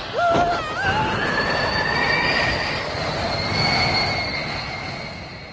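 Cartoon sound effect of a hard-kicked soccer ball streaking away: a loud rushing whoosh with a high, steady whistling squeal, fading out near the end. A short wavering tone sounds just at the start.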